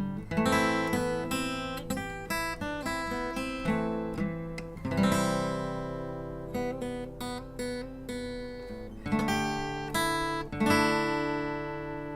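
Outro music: solo acoustic guitar, plucked notes and strummed chords that ring out and fade.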